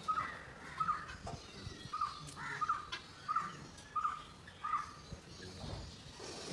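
A bird calling: about eight short, separate calls, roughly one a second, stopping about five seconds in.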